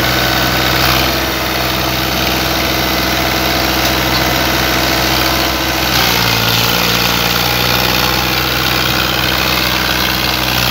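Powertrac Euro 50 tractor's diesel engine running under heavy load while hauling two trailers loaded with sugarcane; the steady engine note shifts in pitch about six seconds in.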